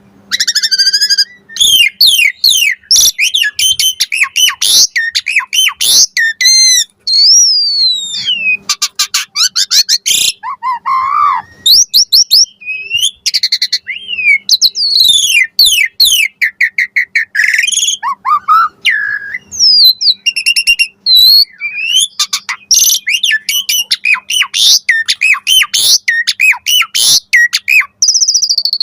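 Asian pied starling (jalak suren) singing a long, nonstop, varied song: gliding whistles that rise and fall, rapid chattering runs and harsh squawks, with imitated phrases mixed in.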